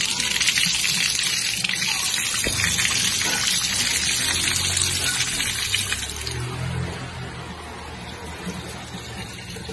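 Water gushing out of a PVC pipe fitted with a red ball valve, a loud steady rush that eases off after about six seconds.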